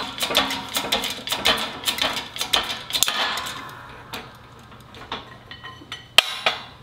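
Hand-pumped bottle jack of a 20-ton shop press being worked, giving quick metallic clicks and clanks for the first few seconds, then quieter scattered clicks and one sharp click about six seconds in, as the press pushes a transmission shaft down through a gear clamped in a bearing separator.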